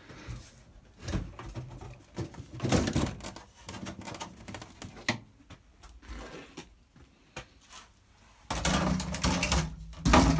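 A metal-edged plywood shipping crate being opened by hand: irregular clicks and knocks from its clasps and lid, with a louder stretch of scraping and rubbing near the end as the packing inside is handled.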